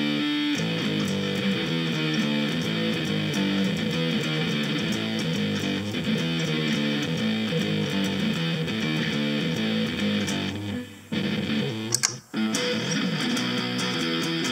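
Electric guitar played through a preset of a Harley Benton DNAfx GiT multi-effects processor: a continuous run of picked notes and strummed chords, broken by two short gaps near the end.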